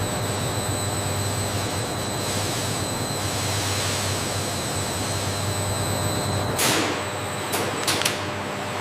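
Steady factory machinery noise with a low hum and a thin high whine. A short rush of air comes about seven seconds in, followed by a few sharp clicks.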